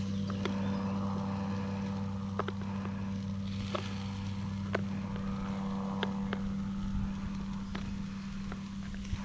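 Steady low engine hum, with a few light clicks of a fork and skewer against a plate as grilled meat is pushed off the skewers.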